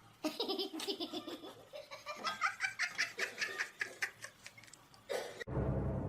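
Someone laughing hard in a quick run of short bursts for about five seconds, then a cut to a different steady sound near the end.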